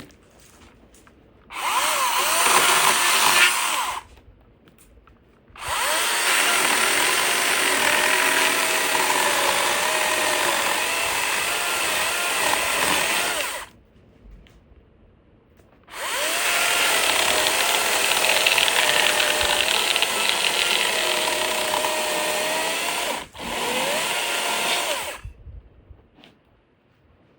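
DeWalt DCMCS574N 54V FlexVolt brushless cordless chainsaw running in four bursts, probably cutting wood: a short one of about two seconds, two long runs of about eight seconds each, and a brief last one after a split-second break. The motor's whine rises as it spins up and sags in pitch while the chain is in the cut.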